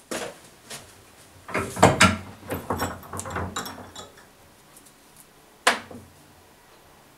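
Metal knocks and clatter as a knife made from a chainsaw bar is handled in a steel bench vise: one hit at the start, a busy run of knocks in the middle, and a last sharp clank near the end.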